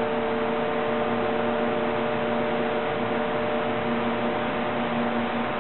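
Steady hum of running industrial machinery: a low electrical hum with a second tone an octave above it, over an even hiss.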